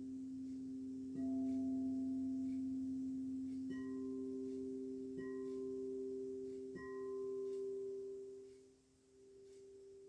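Singing bowls ringing with long, steady tones, struck again about four times so that fresh, higher overtones bloom over the sustained lower notes before they fade near the end.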